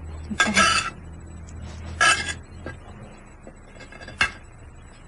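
Kitchen clatter of dishes and utensils against a cooking pot as vegetables go in: three short knocks and rattles, about half a second, two seconds and four seconds in, over a low steady hum.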